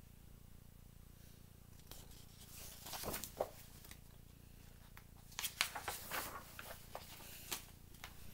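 Faint rustling and light taps of a picture book being handled and its pages turned, in two short spells: around three seconds in and again from about five seconds on.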